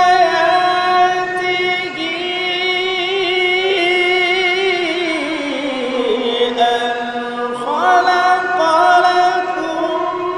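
A man's solo voice chanting Qur'an recitation in long, ornamented held notes with a quivering vibrato. The melody sinks lower about five seconds in and climbs back up near the eight-second mark.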